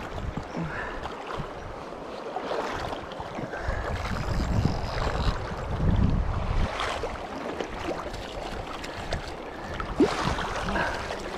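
Wind buffeting the microphone over the steady rush of river water, with heavy gusts in the middle and a few short splashes and knocks, as a hooked trout is played on a fly rod.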